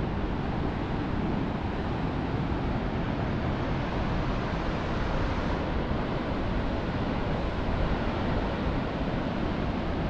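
Wind buffeting the microphone over the steady wash of Pacific Ocean surf.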